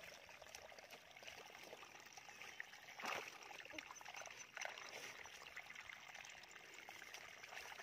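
Faint trickling and splashing of shallow muddy water as hands grope in a mud hole, with one sharper splash about three seconds in.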